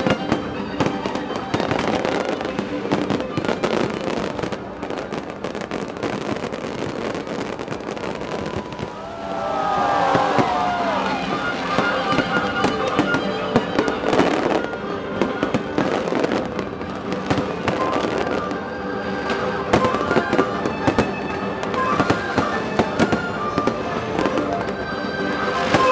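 Aerial fireworks shells bursting in quick succession, a continuous barrage of bangs and crackling. About ten seconds in, a cluster of whistles rises and falls over the bangs.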